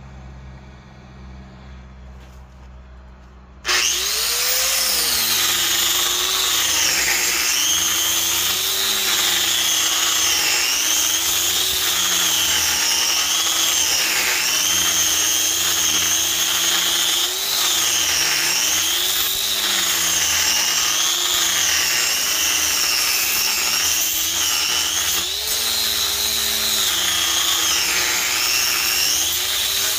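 A faint low hum, then about four seconds in an angle grinder with a Kutzall Extreme tungsten-carbide shaping dish comes in loudly, carving wood. Its whine sags in pitch each time the coarse disc bites into the board and climbs back as it is eased off, over and over.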